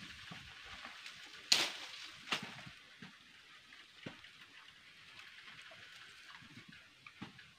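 Wood cooking fire burning with a steady hiss and crackle, and a few sharp snaps of sticks being fed to it, the loudest about a second and a half in and another soon after.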